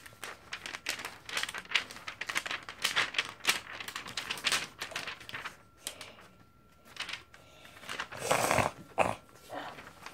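Paper pages of lined notebooks being handled and turned, with crackling and rustling for the first few seconds. A louder swish of a page being flipped over comes about eight seconds in.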